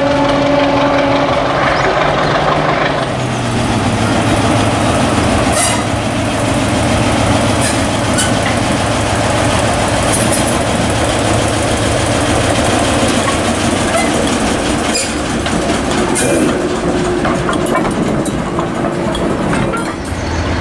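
A diesel train on the move: a horn note ends about a second in, then a steady low engine hum and rolling noise run on, with scattered clicks of wheels over rail joints.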